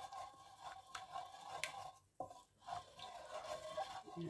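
A utensil scraping and stirring tomato sauce around a steel wok, faint and intermittent with a few small clicks, loosening the browned bits stuck to the pan.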